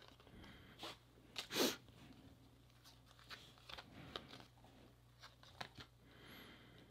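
Trading cards being flipped through by hand: faint clicks and soft slides of card stock against card stock, with one louder short rush of noise about one and a half seconds in.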